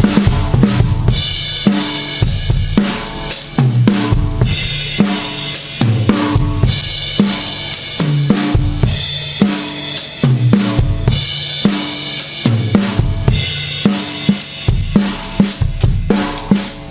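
2007 Pearl Vision drum kit with Zildjian cymbals being played: a steady groove of bass drum and snare, with cymbal crashes washing over it about every two seconds.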